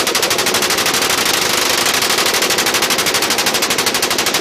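Two 5.56 mm M249 light machine guns fired together in one long, unbroken burst of rapid automatic fire.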